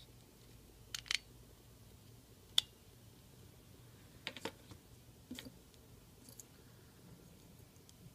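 Small plastic parts of a car-alarm key fob housing being handled and fitted together: a handful of separate sharp clicks and taps, some in quick pairs.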